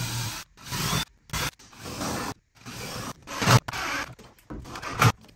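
Cordless drill boring pilot holes through a 2x4 wooden board, the bit grinding through the wood in a series of short runs that start and stop abruptly.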